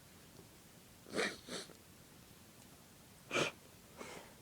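A person sniffing ground pepper hard through the nose: two quick sniffs about a second in, then a single sharper sniff and a fainter breath near the end.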